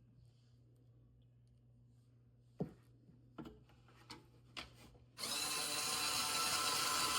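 Small 3.6 V cordless electric screwdriver: a few light plastic clicks as it is handled, then its motor switches on about five seconds in and runs steadily.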